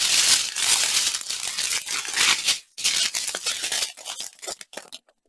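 Small plastic zip-lock bags of diamond painting drills crinkling as they are handled and shuffled, with a brief break about two and a half seconds in, then softer, scattered crackles.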